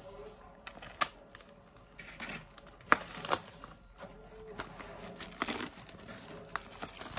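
Plastic shrink wrap on a trading-card booster box crinkling and tearing as it is pulled open, with a few sharp snaps.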